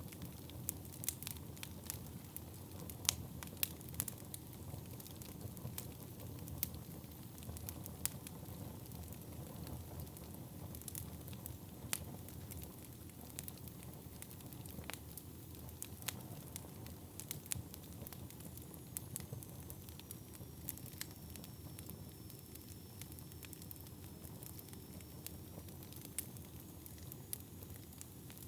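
Wood fire burning in a fireplace: sharp, irregular crackles and pops over a steady low rumble of flame, the pops coming thicker in the first half. A faint, high, thin whistle drifts in during the second half.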